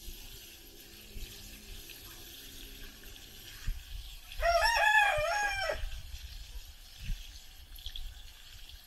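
Water poured from a bucket onto dry ground, a steady faint splashing. A rooster crows once, loudly, about four and a half seconds in.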